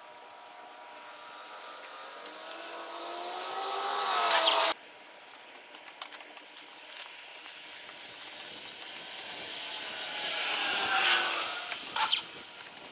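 Two vehicles passing by, each getting louder over a few seconds with a rising hum and tyre hiss. The first cuts off suddenly about four and a half seconds in, and the second peaks near the end.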